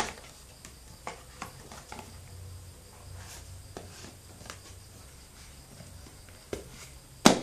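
Cardboard product box being handled: soft scrapes and light taps as the inner tray slides back into its sleeve and the box is turned over, with a sharp click near the end as the loudest sound.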